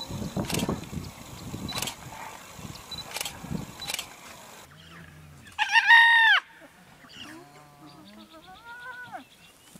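Spotted hyenas calling: one loud, high, drawn-out whine about six seconds in that drops in pitch at its end, followed by several softer rising-and-falling whines. Before that, a low rumble with a few sharp clicks.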